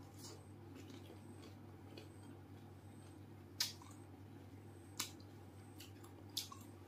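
A person eating pani puri: quiet chewing with three sharp cracks of crisp puri shell about a second and a half apart in the second half, and a few fainter clicks. A low steady hum runs underneath.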